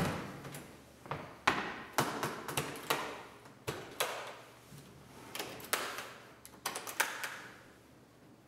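A series of irregular knocks and clicks, each ringing briefly, from equipment being handled, with no music being played.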